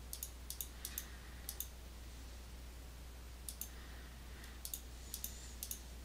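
Computer mouse clicking as checkboxes are ticked in software: about eight quick clicks, each a sharp press and release. There is a pause of about two seconds between the first four clicks and the last four.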